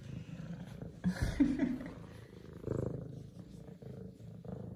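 F2 Savannah cat purring steadily while being petted, with a short call and a low bump of handling noise about a second in.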